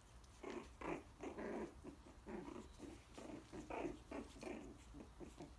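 Coton de Tulear puppies, about four weeks old, growling in many short, irregular bursts as they play-fight and play-bite one another.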